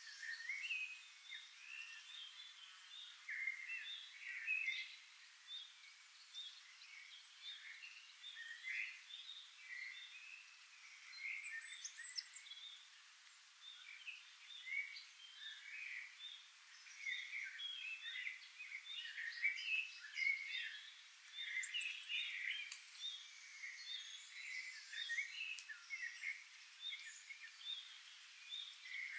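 Several birds chirping and singing at once: a dense, irregular chorus of short high calls.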